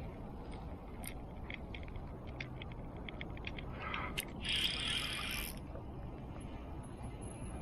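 A run of quick, irregular clicks from a fishing reel's mechanism, then a brief hissing burst, over a steady low rumble.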